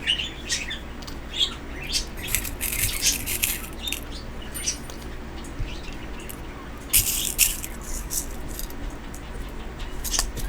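Small craft pieces being handled, giving scattered clicks and rattles, in clusters about two and a half seconds in and again around seven seconds. A pet bird chirps now and then.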